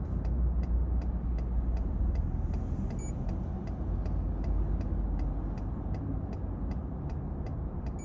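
Steady rumble of heavy passing highway traffic heard from inside a parked truck, with an even, fast ticking, about two and a half ticks a second, from the truck's flashing warning-light flasher.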